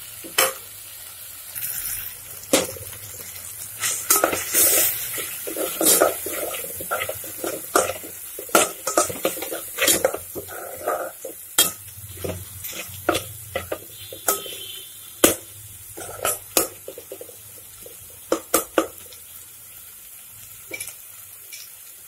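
A steel spoon scraping and clinking against an aluminium pot as a tomato-onion masala with spice powders is stirred and fried, over a light sizzle. The clinks come irregularly and thin out over the last few seconds.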